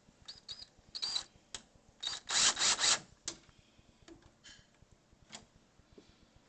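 Door knob's mounting screws being snugged down with a driver: a run of clicks and short rasping bursts, loudest from about two to three seconds in, then a few faint ticks.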